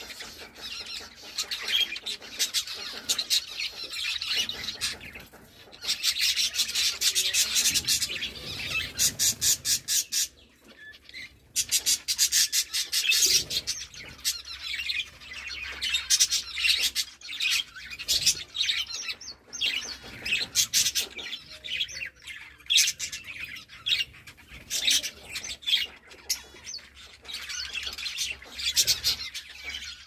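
A flock of budgerigars chattering together, a dense stream of rapid warbling chirps and clicks, with a brief lull about ten seconds in.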